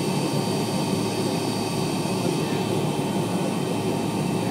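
Steady cabin noise inside a jet airliner: an even rushing drone with faint high steady whines above it.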